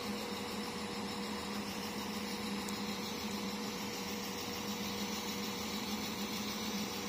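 Northern Ireland Railways Class 4000 diesel multiple unit standing at the platform with its underfloor diesel engine idling: a steady hum with a low drone and a fainter higher tone.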